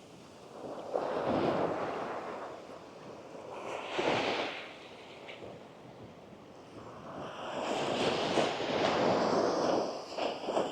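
Small waves breaking and washing up the sand, a rushing sound that swells and fades: once about a second in, briefly about four seconds in, and longer through the second half.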